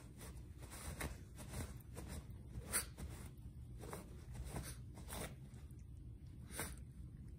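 Small dog (Shih Tzu) chewing and tugging at a crumpled sheet of paper: irregular crinkling and rustling, with a sharper crackle about three seconds in and another near the end.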